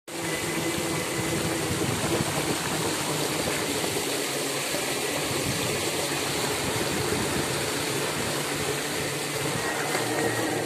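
Steady rushing and splashing of water thrown up by the wheels of a van driving through shallow floodwater on a road, with a faint steady hum beneath.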